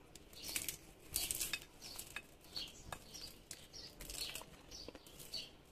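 Crisp air-fried peanut brittle, peanuts bound with baked egg and sugar, crackling and crunching as fingers break and crumble it. It comes as a run of short, irregular crackles and snaps.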